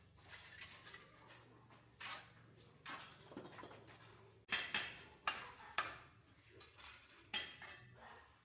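Pots, dishes and metal utensils clattering: a series of sharp clinks and knocks, several at once about four and a half to six seconds in.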